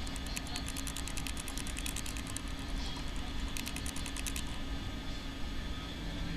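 Rapid, even mechanical clicking, about ten clicks a second, in two runs, the second short, over a steady low hum.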